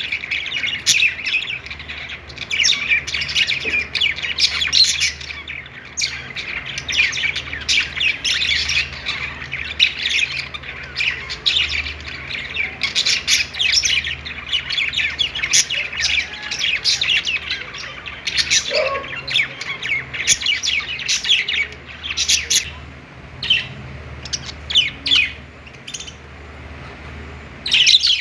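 A group of budgerigars (parakeets) chirping, warbling and squawking in a dense, overlapping chatter that thins to scattered calls over the last several seconds. A faint steady low hum runs underneath.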